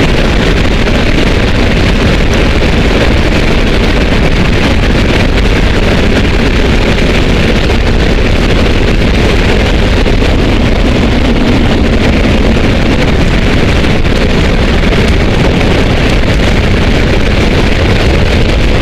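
Loud, steady roar of a C-17's turbofan engines and rushing slipstream inside the cargo hold with the rear ramp open in flight.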